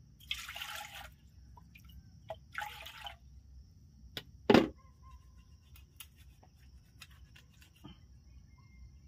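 Water poured and splashed from a plastic dipper twice, each pour under a second long. About four and a half seconds in comes one sharp knock, the loudest sound, with a few lighter clicks of utensils around it.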